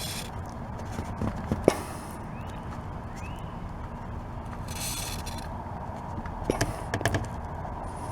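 Short hissing bursts from an aerosol can of WD-40 Specialist silicone lubricant being sprayed onto a car door's rubber-lined slide, the longest about five seconds in. A few sharp clicks and knocks come in between, the loudest a click a little under two seconds in.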